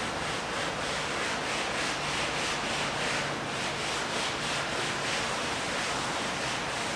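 Sponge scrubbing back and forth across a painted canvas: a rhythmic rubbing of about two to three strokes a second, which stops near the end.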